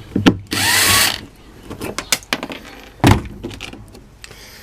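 Power drill-driver running in one short burst, its motor pitch rising as it spins, while backing out fittings. A sharp knock follows about three seconds in, with scattered clicks of metal hardware being handled.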